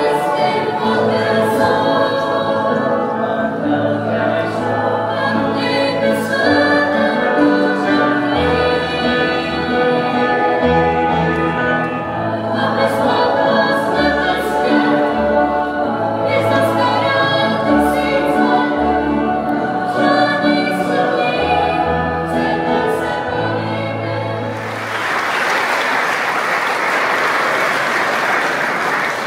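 A young mixed choir singing a Czech pop song, backed by a band with a pulsing bass line and cymbal ticks. The song ends about 25 seconds in, and the audience breaks into applause.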